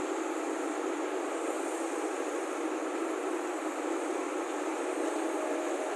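Steady, even rushing noise with no distinct tones, beats or events.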